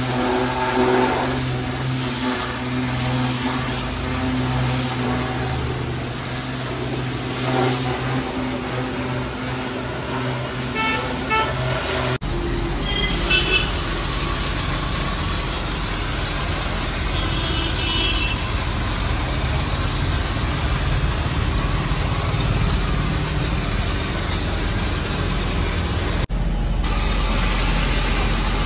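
High-pressure washer jet spraying a car's underbody over the steady hum of the pump motor. About twelve seconds in it cuts to the steady rushing hiss of a compressed-air foam spray gun coating the wheel and suspension with foam.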